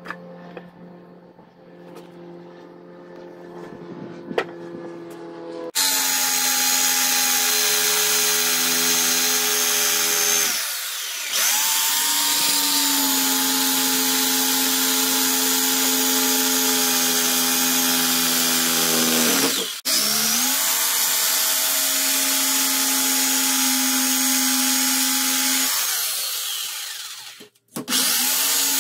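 Corded DeWalt jigsaw cutting a reclaimed oak handle blank held in a bench vise, starting about six seconds in and running at a steady pitch. It dips briefly twice, then stops and starts again just before the end.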